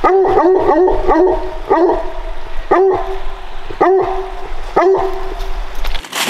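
Hound barking: a quick run of short barks, then slower barks about one a second, each bark rising then falling in pitch.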